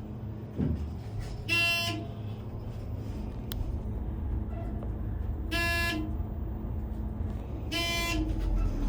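Elevator car running with a steady low rumble, and a short buzzy electronic beep sounding three times: the floor-passing signal as the car climbs.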